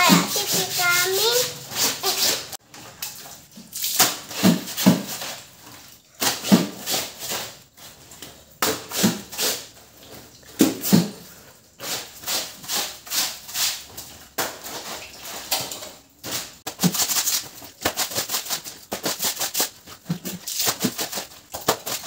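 Laundry being scrubbed by hand on a tiled floor: rasping rubbing strokes in quick runs, at times about four or five a second, broken by short pauses.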